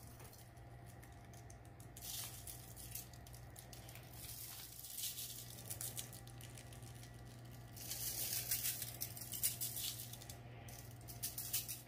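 Dry spice rub shaken from a shaker bottle onto raw beef short ribs: a faint, grainy rattling patter that comes in several bouts, over a low steady hum.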